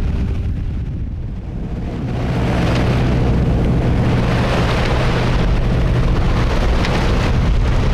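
Sailboat's inboard engine running steadily under way, a low drone with a rushing noise over it; both grow louder about two seconds in.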